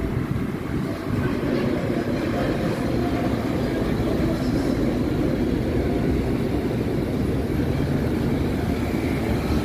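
Hino Profia heavy truck's diesel engine running steadily as the truck pulls out and drives past at close range. The sound is a dense low engine and tyre noise.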